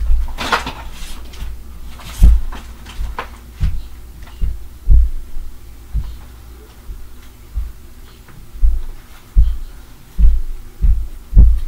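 Heavy, dull thuds coming through the ceiling from the floor above, irregular, about one a second, a few of them sharper and louder like stomps or something dropped.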